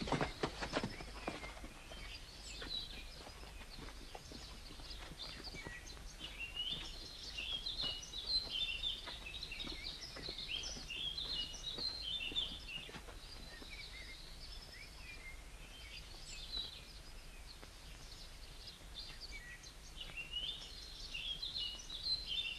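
Faint birdsong in a forest: many small birds chirping and trilling over a low steady hiss. A run of quick knocks at the start dies away within about two seconds.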